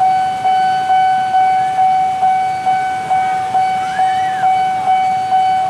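Railway level-crossing warning bell ringing, struck a little over twice a second, each ring fading before the next: the signal of an approaching train.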